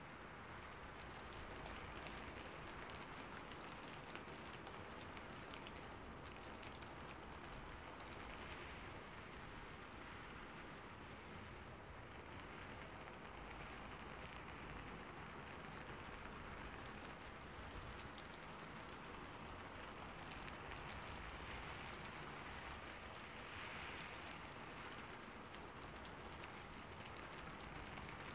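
Steady, even hiss with faint scattered patter, like light rain.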